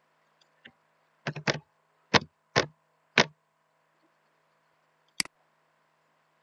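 Computer keyboard keys clicking: five keystrokes over about two seconds as a short word is typed, then a single sharper key press, the Enter key, about two seconds later.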